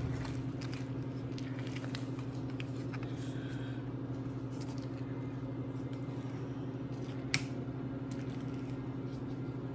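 Faint scraping and light ticks of a silicone spatula pushing thick batter out of a glass mixing bowl into a glass baking dish, with one sharper click a little past seven seconds in, over a steady low hum.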